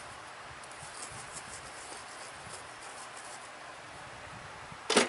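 Quiet workshop room hiss with a few faint handling ticks, then one sharp knock near the end, as of a small object set down on the bench.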